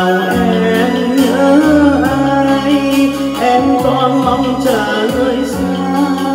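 A man singing a Vietnamese song into a handheld microphone over a karaoke backing track.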